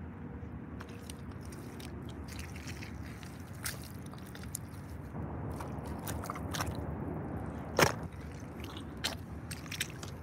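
Irish Setter rubber boots squelching and sucking through deep wet mud, step after step, with several short wet squelches, the loudest a little under eight seconds in. A low steady rumble runs underneath.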